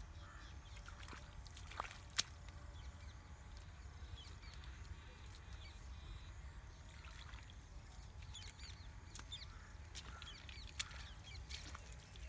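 Faint outdoor ambience: scattered bird chirps over a steady low rumble and a steady high hiss. A few sharp clicks stand out, the loudest about two seconds in.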